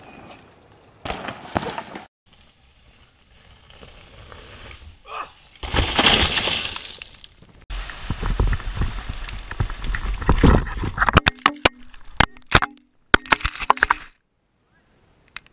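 Mountain bike riding and crashing on a dirt trail: tyre and wind rush, the bike rattling over rough ground, then a run of sharp knocks and clatters as the rider crashes, about 11 to 13 seconds in.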